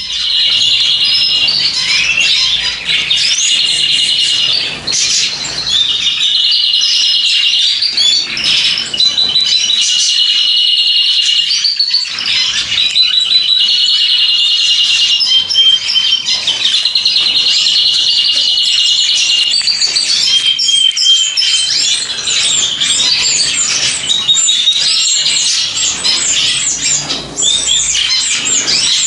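Many small cage birds chirping and calling together in a dense chorus, with rapid high trills repeated every few seconds.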